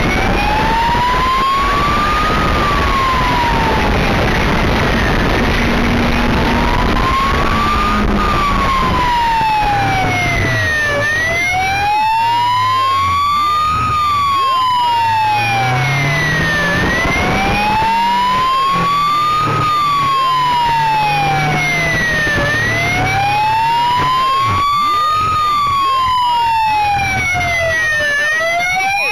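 Police motorcycle's wail siren, rising and falling in slow sweeps of about six seconds each, over the bike's engine note. A rush of wind noise under it dies away about ten seconds in as the motorcycle slows.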